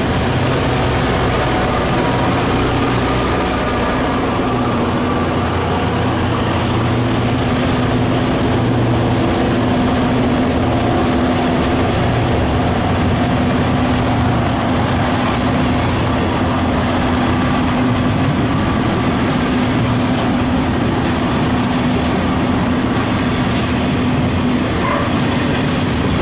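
Norfolk Southern freight train passing close by. Near the start, the trailing EMD GP38-2 locomotive's diesel engine runs as it goes past. Then a long string of covered hopper cars rolls by with a steady rumble of steel wheels on the rails and a faint clickety-clack.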